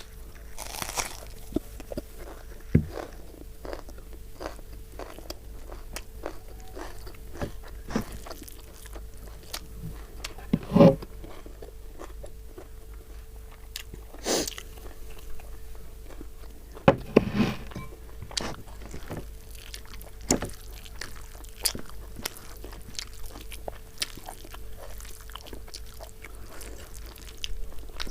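Close-up eating sounds of a person chewing rice and chicken gravy: wet mouth smacks and many small clicks, with a few louder bites and slurps along the way.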